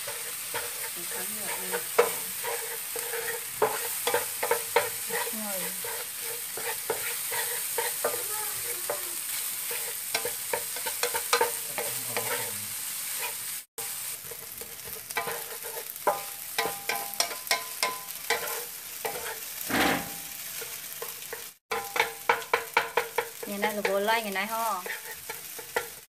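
Rice frying with a steady sizzle in a nonstick frying pan while a wooden spatula stirs and turns it, with many quick scrapes and taps of the spatula against the pan. The sound cuts out for a moment twice.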